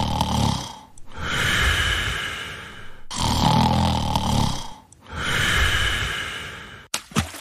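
Snoring: two slow cycles, each a rumbling snore on the in-breath followed by a breathy hiss on the out-breath, about two seconds each.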